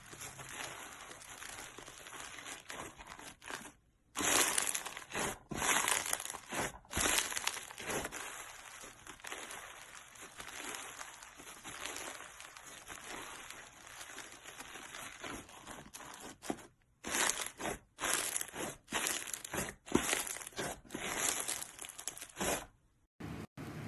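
Slime being squeezed and pressed by hand, a dense crackling and crinkling. It grows louder in spells about four seconds in and again in the last third, with short pauses between handfuls.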